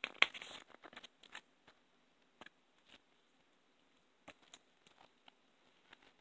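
Paper and card items being handled: a sharp click or rustle just after the start, a few more in the next second, then scattered faint ticks.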